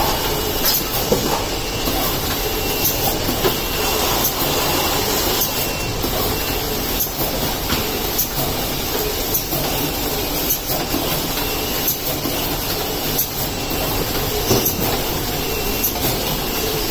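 Automated case packing line with a delta (spider) robot running: a steady machine noise with frequent short clicks and knocks throughout.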